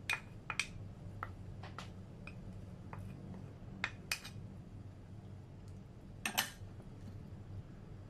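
Wooden spoon scraping and tapping against bowls while scooping chili paste into broth: scattered light clinks and knocks, the loudest a quick pair about six seconds in.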